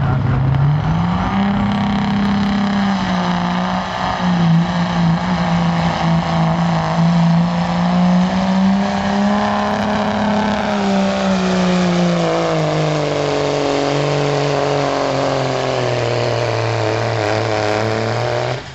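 Diesel pickup truck engine under full load pulling a sled. It revs up in about the first two seconds, holds a high, steady pitch for around nine seconds, then its pitch falls gradually and settles lower near the end.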